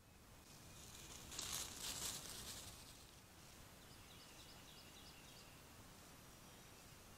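Faint forest ambience with a trail camera's steady microphone hiss. A brief burst of rustling noise comes about a second and a half in. Around four seconds in a bird gives a quick series of about six short high notes.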